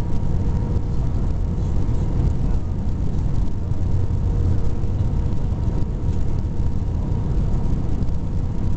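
Airbus A320 cabin noise on final approach: a steady, loud low rumble of engines and airflow, with a faint steady hum above it.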